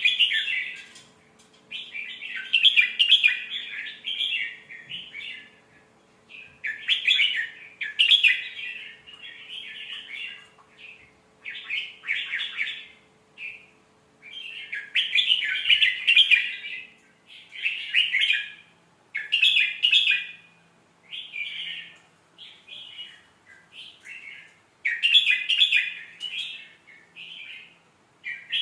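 Red-whiskered bulbul singing: a run of short, quick warbled phrases, each about one to two seconds long, repeated with brief pauses between them.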